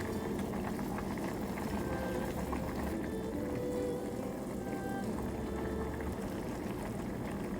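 Spicy noodle soup boiling in a pot, a steady bubbling.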